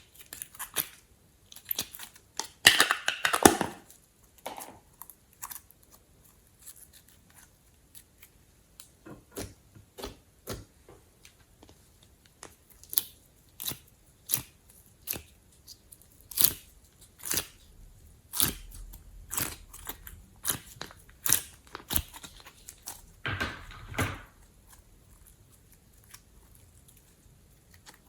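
Glossy slime mixed with glitter and clay being squeezed and pressed by hand, giving a run of separate sticky clicks and pops. There are two longer, denser crackling squishes, one about three seconds in and one near the end.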